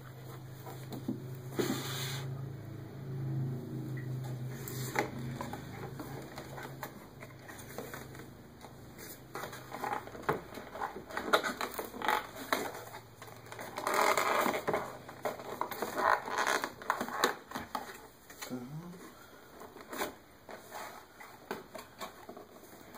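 Cardboard laptop packaging being handled: scattered taps, clicks and short rustles as boxes and lids are moved, with a longer rustle about fourteen seconds in. A low steady hum runs under the first ten seconds or so.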